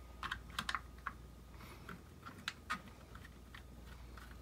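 Small screwdriver backing screws out of a drone's plastic body, with the shell being handled: a string of faint, irregular light clicks and ticks.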